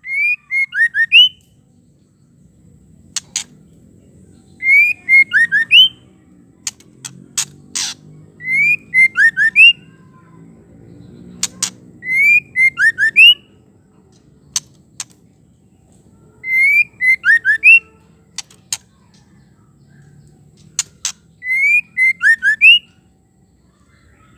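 Female white-rumped shama calling: the same short phrase of about five quick whistled notes, six times, roughly every four seconds. Single sharp clicking notes fall between the phrases.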